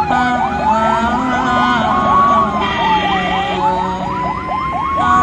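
Ambulance sirens: one wailing, rising and falling slowly every two to three seconds, with a much faster yelping siren sweeping over it. A horn blares for about a second midway.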